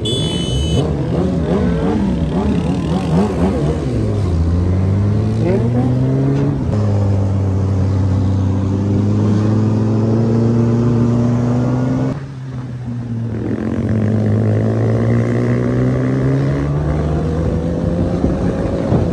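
Motorcycle engines: at first several engines revving at once with their pitches crossing, then one engine holding a steady note that climbs slowly, drops away briefly about twelve seconds in, and climbs again.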